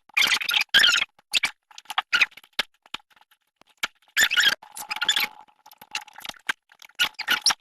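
Hand screwdriver tightening a screw on a door knob, giving irregular bursts of scratchy clicking with short pauses between turns.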